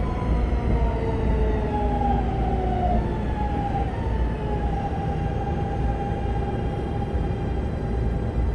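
Keihin Kyuko 1000-series train's Siemens GTO-VVVF inverter and traction motors whining in several tones that slowly fall in pitch as the train slows, over the steady low rumble of the running gear, heard from inside the passenger car.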